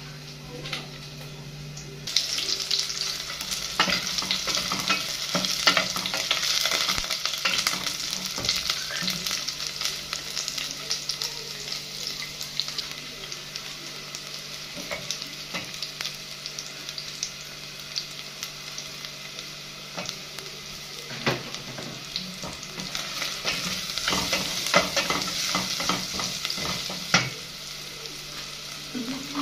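Sliced red onions sizzling as they fry in a stainless steel pot, with a wooden spoon knocking and scraping against the pot as they are stirred. The sizzle starts about two seconds in and is strongest at the start and again near the end.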